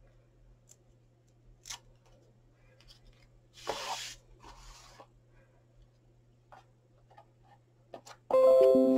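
Quiet handling of paper and card: a short rustle about four seconds in, a softer one after it, and a few light taps as the tag is pressed onto the paper box. Near the end, music starts suddenly with sustained pitched notes that slowly fade; this is the loudest sound.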